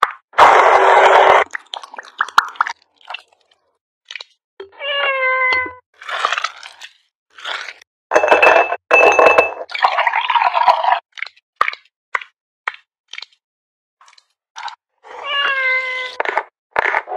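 A handheld electric chopper runs in a short loud burst, crushing ice and grapes, about half a second in. Then come scattered clinks and clicks of ice and glassware, with a cat meowing twice, each call about a second long and dipping slightly in pitch, and a loud burst of noise right at the end.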